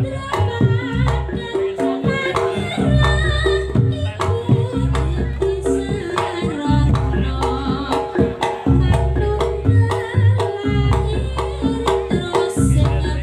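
Live Reog Ponorogo gamelan accompaniment for the jathil dance: hand drums struck in a quick, busy rhythm over sustained gong and kenong tones, with a wavering high melody line above.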